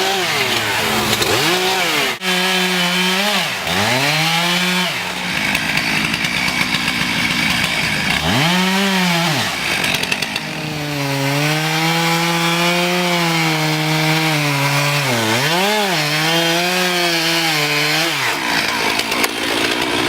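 Two-stroke chainsaw revving up and cutting through small trees. Its engine pitch rises and sags several times as the chain bites into the wood, then holds through a longer cut in the second half with one brief dip.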